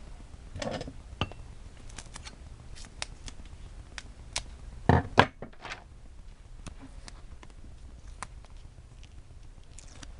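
Scrapbooking paper and stickers being handled on a table: scattered light clicks and rustles, with a louder cluster of knocks about five seconds in.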